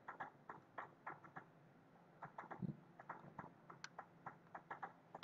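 Faint, irregular clicking of a computer keyboard and mouse, several clicks a second.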